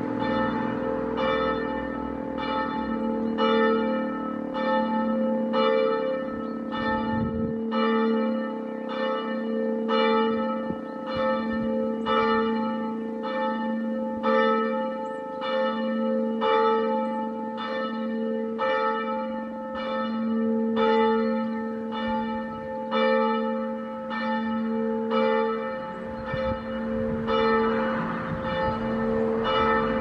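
Church bells ringing at midday, strokes coming in a steady run about three every two seconds over a lasting, pulsing hum.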